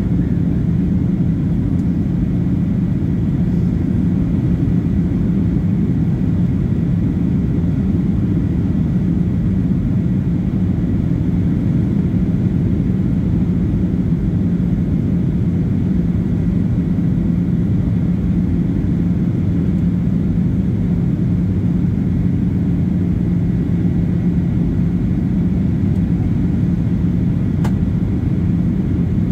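Steady low rumble of a jet airliner in flight, heard inside the cabin: engine and airflow noise through the fuselage, with a faint steady whine on top.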